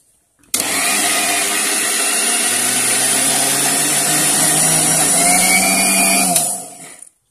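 Electric mixer grinder (mixie) running with grated coconut and a little water in its steel jar. It starts abruptly about half a second in, runs steadily for about six seconds, then stops and winds down. The coconut is not yet ground finely enough.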